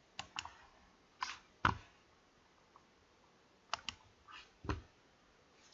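Computer mouse clicking at a desk: a few faint, short clicks at irregular intervals, with quiet between them.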